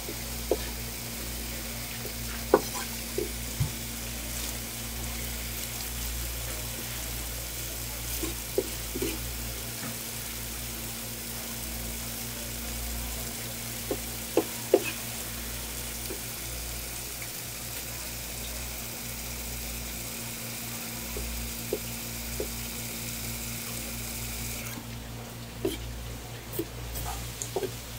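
Running water hissing from a hose nozzle onto a wooden cutting board, with a few sharp knocks of a knife on the board as raw seafood is cut. The water stops abruptly near the end, leaving a few more knife knocks.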